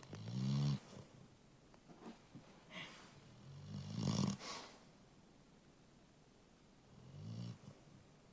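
One-year-old black Labrador snoring in its sleep: three snores a few seconds apart, each a short low pitched rasp, the last one softer.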